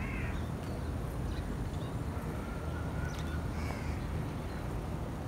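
A few faint bird calls, short and arching, near the start and again about four seconds in, over a low steady rumble.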